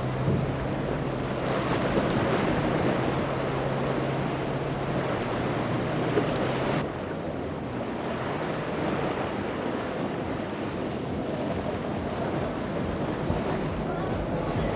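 Outboard-powered center-console boats running fast through choppy water: a steady low engine drone over the rush of hull spray and wake, with wind on the microphone. About 7 seconds in the engine tone drops away abruptly and the rush of water and wind carries on as a Sea Hunt with twin Yamaha 300 outboards passes.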